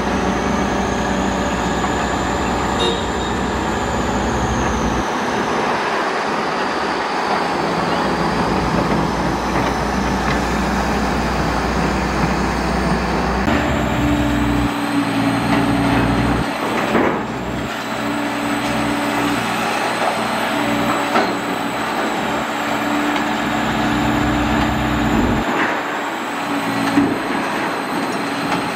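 Heavy demolition excavator at work, its diesel engine and hydraulics running steadily under load, with a few scattered knocks. A new steady tone joins about halfway through.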